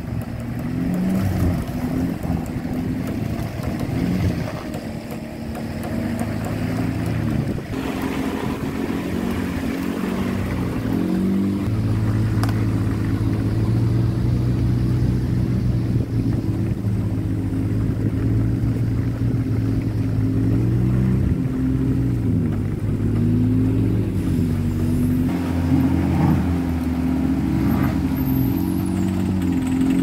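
Nissan Terrano's engine labouring under load as the truck climbs a muddy riverbank, its revs rising and falling, with a steadier stretch of several seconds mid-way.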